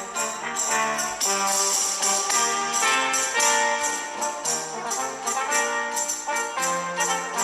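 Intro music: an upbeat orchestral piece with brass, sleigh-bell jingles and tambourine, notes changing in a quick steady rhythm.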